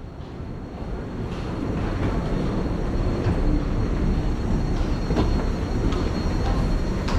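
A passenger train running on its rails, its low rumble building over the first couple of seconds and then holding steady, with a thin faint high whine and a few light clicks.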